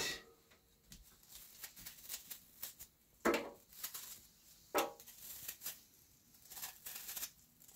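A small knife paring leftover peel off a peeled apple, giving soft crisp cuts and little clicks. Two louder short sounds stand out, about three and five seconds in.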